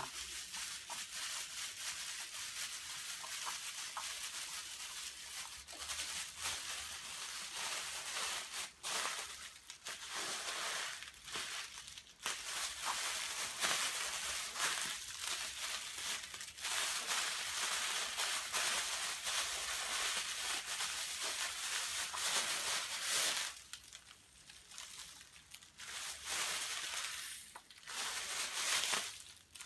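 Thin plastic carrier bags crinkling and rustling as they are folded and rolled up tightly by hand, nearly continuous, with a couple of short lulls near the end.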